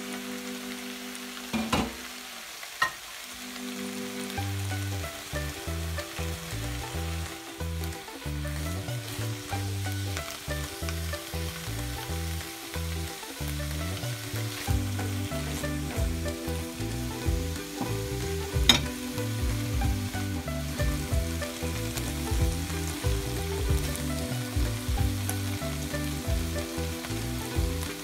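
Swiss chard and garlic sizzling as they sauté in oil in a frying pan, with a few sharp clicks, the loudest about two-thirds of the way in.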